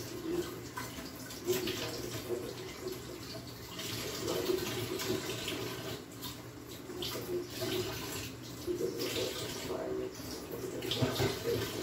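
Food cooking in a lidded pan on a gas burner: a steady watery hiss with irregular crackles.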